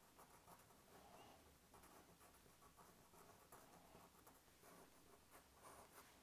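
Faint scratching of a felt-tip pen drawing short, irregular strokes on paper.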